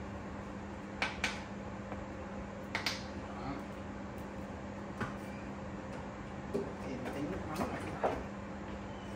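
Kitchen handling sounds: a handful of sharp clicks and knocks as a seasoning bottle and containers are picked up and set down, over a steady low hum.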